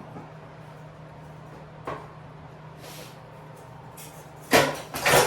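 Metal minibike parts clattering and clanking loudly about four and a half seconds in, after a few faint clicks, over a steady low hum.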